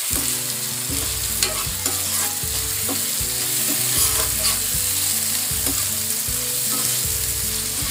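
Chopped onion, tomato and capsicum sizzling in hot oil in a non-stick kadai while a spatula stirs and scrapes them, with short clicks of the spatula against the pan.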